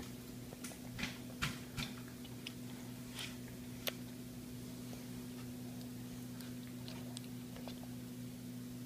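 A baby eating banana slices in a high chair: a handful of faint, sharp clicks and mouth smacks in the first four seconds, then only a steady low hum.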